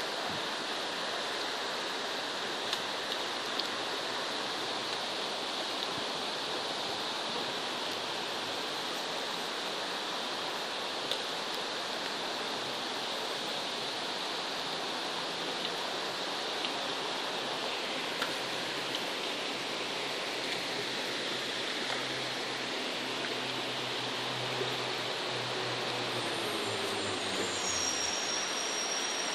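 Steady rushing and burbling of a shallow stream's flowing water. A low hum joins in the last few seconds.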